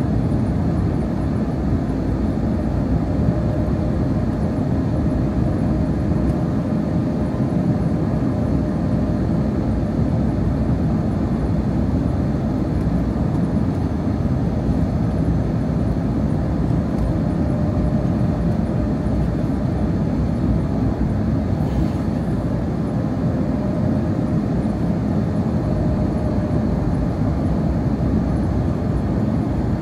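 Cabin noise of an Airbus A321neo descending on final approach: a steady roar of airflow and engines, with a faint steady hum above it.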